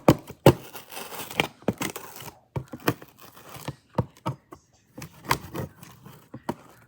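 A shipping package being opened by hand: packaging tearing and crinkling in an irregular run of sharp snaps and rustles.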